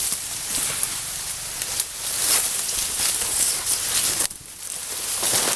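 Dry grass and reed stems rustling and crackling as they brush against the camera while someone pushes through thick cover, with a short lull a little past four seconds.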